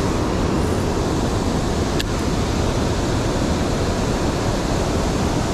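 Steady rush of river water running over rocky shoals.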